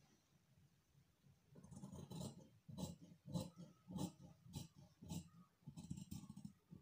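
Scissors cutting through garment fabric and its ironed-on fusing interfacing, a series of separate snips about one every half second or so, beginning about a second and a half in.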